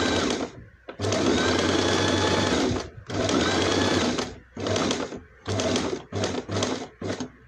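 Electric domestic sewing machine stitching through fabric, its motor running in three runs of a second or two, then a string of short stop-start bursts near the end as the seam is finished.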